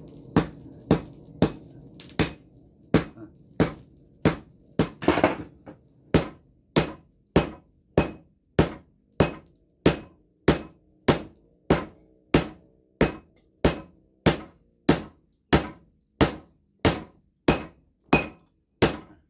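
Hand hammers striking red-hot breaker-chisel steel on a small steel anvil as a golok blade is forged. The blows come unevenly at first, then settle into a steady beat of about two a second, each with a short, high metallic ring.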